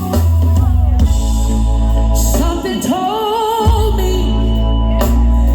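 Music with singing over a heavy, steady bass line, with a long sung note with vibrato near the middle.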